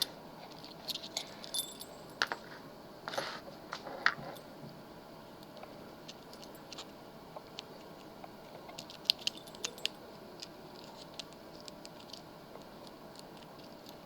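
Small metallic clicks and clinks of a lock and lockpicking tools being handled, bunched in the first few seconds and again about nine seconds in, with scattered faint ticks between.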